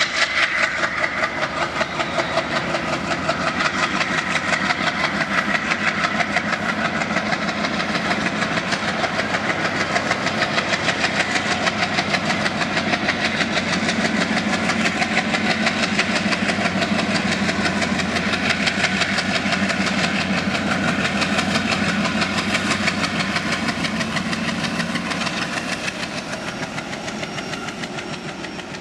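ALCO diesel locomotive engine working hard as it hauls a passenger train, throbbing with a fast, steady beat while it pours black exhaust. The sound fades over the last few seconds as the train moves away.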